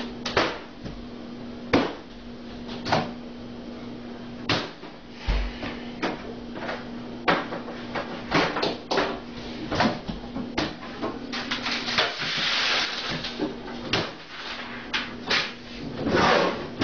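A microwave oven humming as it runs, with many irregular sharp knocks, clicks and bangs as it is handled and banged on. The hum cuts out about twelve seconds in with a short rattling clatter and starts again about two seconds later.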